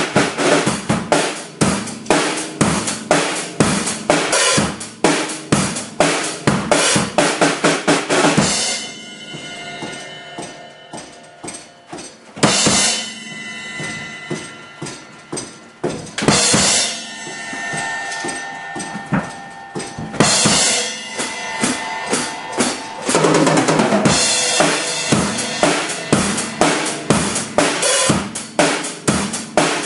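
Acoustic drum kit played hard: a busy groove of bass drum, snare and cymbals, which thins out about a third of the way in to big cymbal crashes roughly every four seconds left ringing between hits, then picks up into the full groove again near the end.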